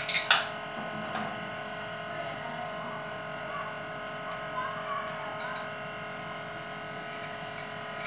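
A sharp metallic knock about a third of a second in as the ceiling fan's hub and blades are handled, then a steady hum with several fixed tones.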